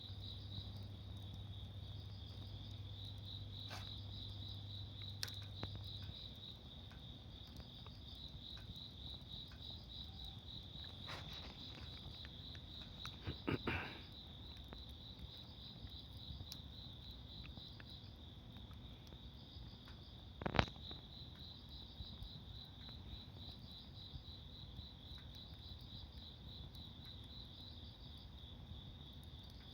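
Crickets chirping steadily in a fast, even pulsing trill throughout. A few sharp clicks or pops stand out, the loudest about twenty seconds in. A low hum stops about six seconds in.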